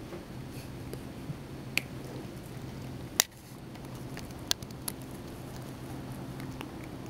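A cat sucking on one of its front toes while grooming, making wet sucking sounds and sharp little pops as the toe slips out of its mouth. The pops come a few times, the loudest about three seconds in, over a faint steady low hum.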